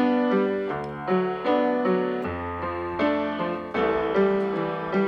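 Song intro played on an electric piano or keyboard: chords struck roughly twice a second, each note ringing and fading.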